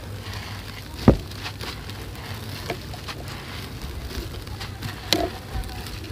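Dry, gritty sand-cement block being crumbled by hand, with loose sand and crumbs trickling and crackling. A sharp thump about a second in is the loudest sound, with a few more knocks near the end.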